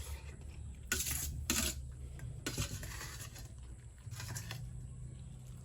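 Eating sounds from a plate of fried noodles: a few short clicks and scrapes of cutlery and mouth noises, about four in all, over a low steady hum.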